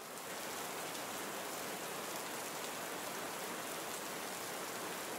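Steady, even hiss with no distinct events, fading in at the very start.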